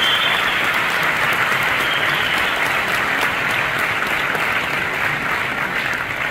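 Audience applauding steadily, a dense sound of many hands clapping together.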